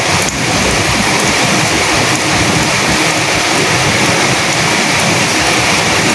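Steady rain falling as a dense, even hiss.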